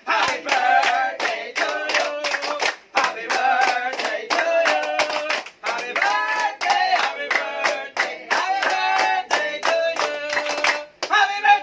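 A small group of adults and children singing a birthday song together, clapping steadily in rhythm.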